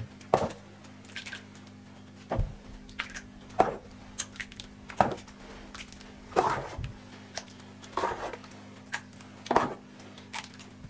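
A steel ladle scooping thick creamy dessert from a steel pot and pouring it into a steel bowl: short clinks and wet splats roughly every second or so, over a faint steady hum.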